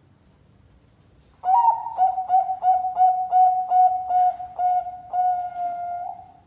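Bangkok zebra dove (perkutut) singing, starting about a second and a half in: a clear whistled run of about ten short notes on one pitch, roughly three a second, ending in one longer held note.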